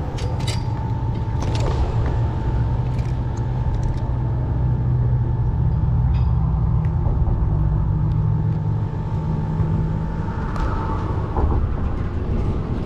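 Low engine rumble of a passing motor vehicle, building to its loudest midway and easing off near the end, with a few light handling clicks early on.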